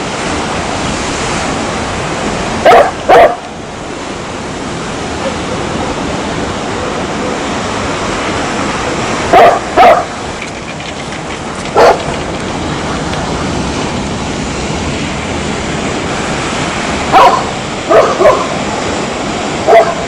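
A dog barking in short groups of one to three barks, several seconds apart, about nine barks in all. Under the barks runs a steady rushing background noise.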